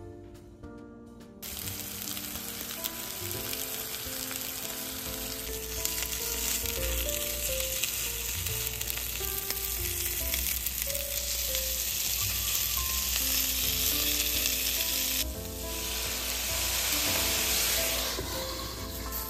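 Sweet potato meatballs sizzling in oil in a frying pan. The sizzle starts about a second and a half in and turns louder and hissier for a few seconds near the end as a little water goes into the hot pan, then eases as the lid goes on.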